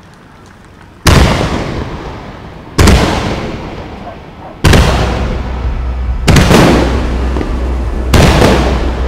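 Aerial firework shells bursting overhead: five loud booms about every two seconds, the first about a second in, each fading away over a second or more.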